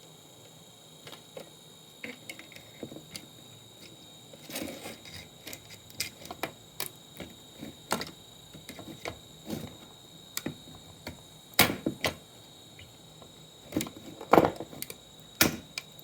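Irregular clicks, taps and knocks of parts and tools being handled while an old monitor is taken apart, sparse at first and busier after a few seconds, with the loudest knocks about two thirds of the way in and again near the end. A faint steady high tone runs underneath.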